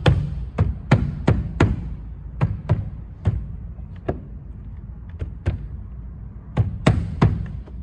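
Hand pounding on a Lexus ES350's plastic interior door panel to push it down and snap its retaining clips into place. A quick run of sharp thumps, about three a second, then sparser ones, and a loud cluster of three near the end.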